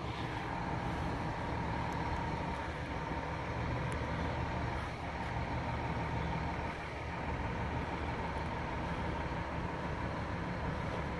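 A steady mechanical hum with a constant high whine, as of machinery running without pause.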